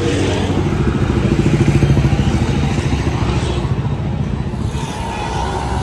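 A small motor vehicle's engine running close by in street traffic. It grows louder to a peak about two seconds in, then eases off.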